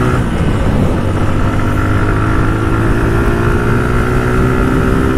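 Suzuki Gixxer's single-cylinder engine running at a steady cruising speed, heard from the rider's position with wind and road noise over it.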